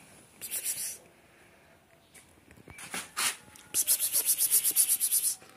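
Rapid rhythmic scratching, about nine strokes a second: a short run about half a second in and a longer, louder run of about a second and a half near the end, with a few softer scrapes between.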